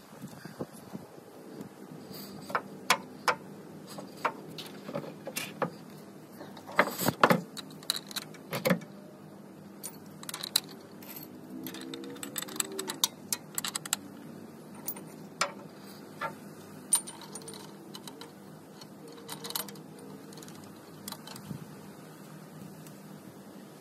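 Metal hardware clinking and tapping as long bolts are fed through the bottom bracket plate of a truck air spring at the leaf spring: irregular light metallic clicks, busiest about seven to nine seconds in.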